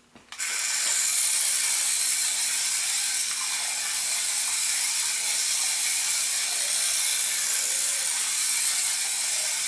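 Tiny 1:64-scale RC truck's electric motor and plastic gears whirring steadily as it drives, a high-pitched mechanical buzz that starts suddenly.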